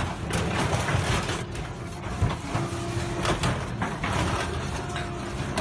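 Slow-speed twin-shaft shredder crushing and tearing the metal body of a bus: a dense run of cracks, crunches and brief metal squeals over the machine's steady running.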